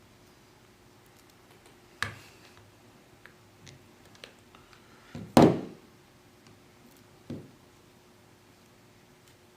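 Small clicks and knocks of hand tools working against a Galaxy S5 while its glass is pried up: scattered light ticks, with three louder knocks, the loudest about five seconds in.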